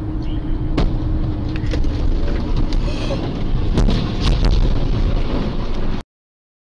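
Loud rumble of a car at highway speed heard from inside the cabin, with several sharp knocks as it drives into a thick cloud of dust and debris; the sound cuts off abruptly about six seconds in.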